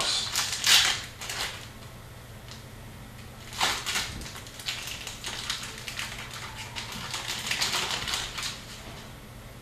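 Upper Deck hockey trading cards and their packs being handled, rustling and sliding in irregular spells. The noise is loudest in the first second and again from about four to eight seconds in.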